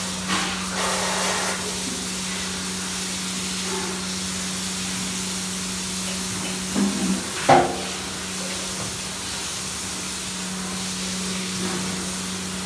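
A steady hiss with a constant low hum, broken by two short, louder sounds about seven seconds in.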